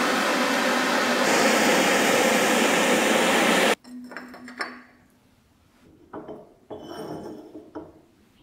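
Handheld propane torch burning with a steady hiss as it heats a small iron part. It cuts off suddenly a little under four seconds in. After that come a few light clinks and knocks of steel pliers against a glass mug as the hot part is dipped in oil to blacken it.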